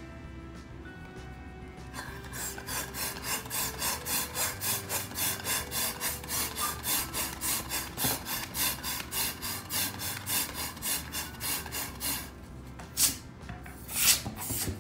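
Over background music, a fast, even rasping rub goes on for about ten seconds at roughly three strokes a second. Then come two sharp, loud bangs of balloons popping, about a second apart, near the end.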